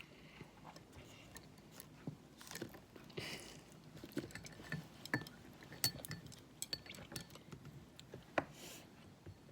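Eating sounds: utensils clicking and clinking against dishes, a string of short, sharp taps at irregular intervals.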